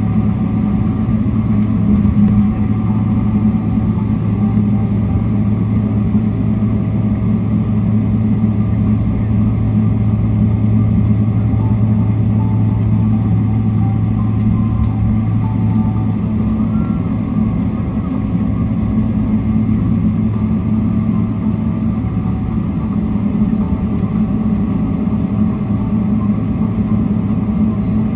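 Steady low rumble and hum in the cabin of a Boeing 777-300ER as it taxis after landing, from its engines at idle and its wheels rolling on the taxiway.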